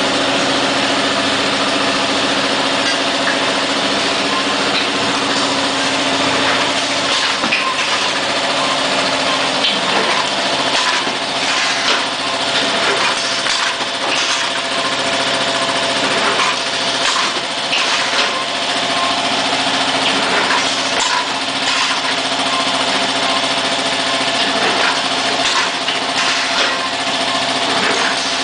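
Automatic carton case-packing machine running: a steady hum from its motors and conveyor with a couple of fixed tones, overlaid by frequent irregular clacks and knocks from its moving parts and air cylinders.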